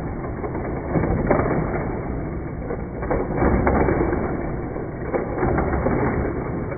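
Hot Wheels die-cast toy cars racing around plastic track loops: a steady mechanical whir with scattered sharp plastic clacks.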